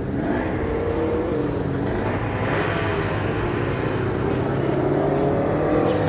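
Racing lawn mower engines running, their pitch wavering up and down and growing slowly louder.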